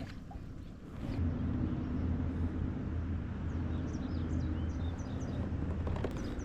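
A steady low motor hum starts about a second in and holds even, with a few short bird chirps in the middle.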